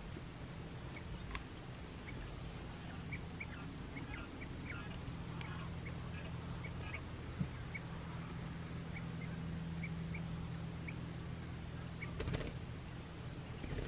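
Three-week-old Japanese (Coturnix) quail chicks peeping: short, high chirps scattered throughout, over a low steady hum. There is a brief noisy burst near the end.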